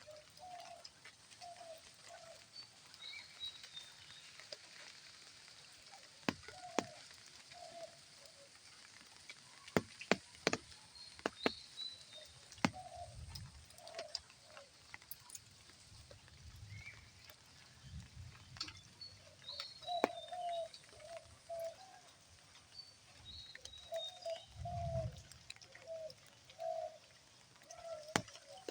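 Birds calling: runs of short, low repeated notes with higher chirps between them. Sharp clicks and a few low thuds come and go throughout.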